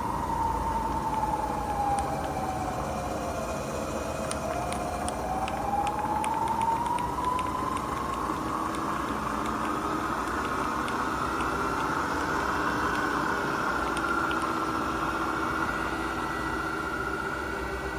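CNC vertical milling machine running with a whine that falls in pitch over the first few seconds, then rises and holds steady at a higher pitch, as its speed changes. A few light ticks are heard about four to seven seconds in.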